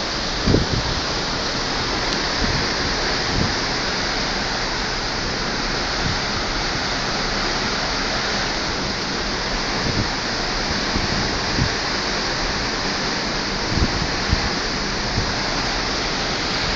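Steady rushing of seawater along a moving cruise ship's hull, heard from a cabin balcony, with a few short low thumps against the microphone.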